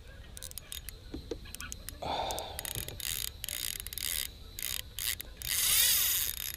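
Spinning reel being worked while fighting a hooked bass on light line: clicking and whirring in bursts, the loudest and longest burst about a second before the end.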